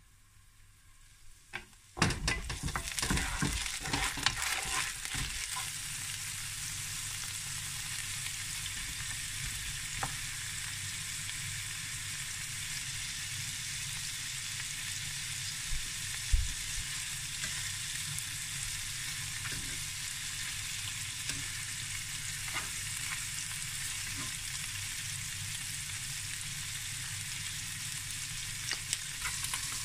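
Bacon-wrapped asparagus frying in a nonstick pan. The sizzling starts suddenly about two seconds in, crackles hardest for the first few seconds, then settles to a steady sizzle with a few light clicks.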